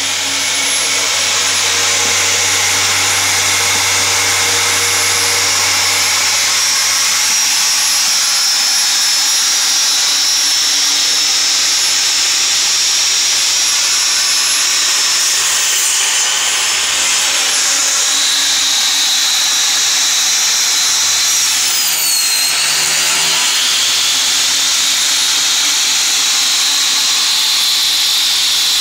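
Einhell TE-TS 1825 U table saw running with its blade spinning and boards being fed through it. A steady high whine twice dips in pitch and recovers as the blade is loaded by the cut.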